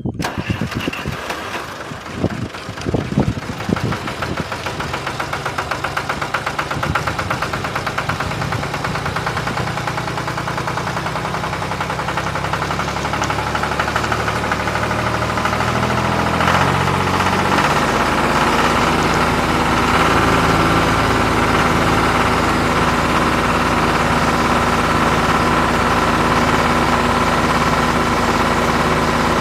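An engine running steadily with a pulsing, knocking beat, after a few sharp knocks early on.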